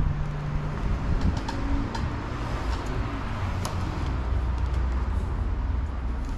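Steady low rumble of a motor vehicle's engine nearby, with a few light clicks over it.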